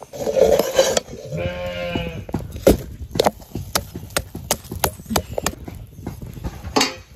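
Quick run of sharp taps, about four a second, of a metal spoon against an iron wok as finger millet roti is pressed flat, with one livestock bleat about a second and a half in.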